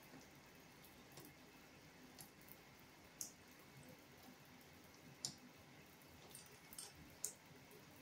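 Near silence in a bathtub: a faint steady bathroom fan hum, with a few single water drips falling onto the tub floor as short, sharp ticks, the clearest four in the second half.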